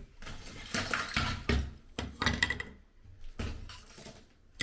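Old ceramic wall tiles being pried off by hand, a series of knocks, scrapes and clinks every half second or so in a small tiled room.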